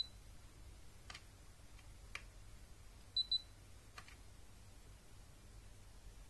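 Aroma diffuser humidifier beeping as its control buttons are pressed: one short high beep, then a quick double beep about three seconds later, with faint clicks from the buttons and fingers in between.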